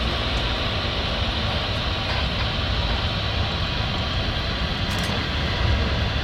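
Jet airliner engines running, a steady rumble with a rushing noise over it.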